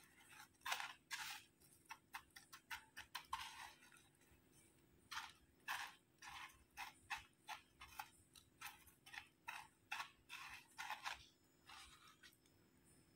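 Faint, irregular crackling of crushed corn chip crumbs as fingers press and turn a batter-coated piece of bread in them to coat it. The crackles stop near the end.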